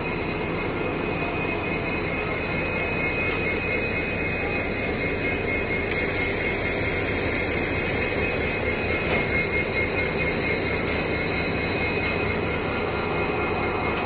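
A train running: a steady rumble and rush with a faint high whine, and a hiss in the top range for a couple of seconds around the middle.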